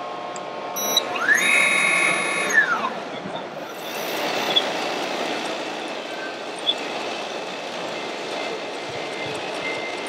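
Busy exhibition-hall din of crowd chatter. About a second in, a short multi-tone mechanical whine rises, holds for about a second and falls away.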